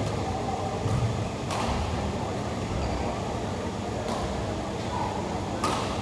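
Badminton rally: sharp cracks of rackets striking the shuttlecock, three clear hits a second or two apart, over a steady hum.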